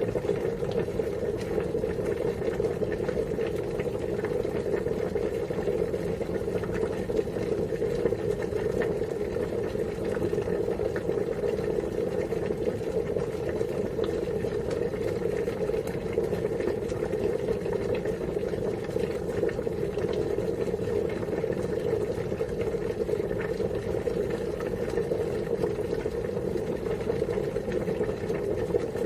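Water boiling, a dense, steady bubbling.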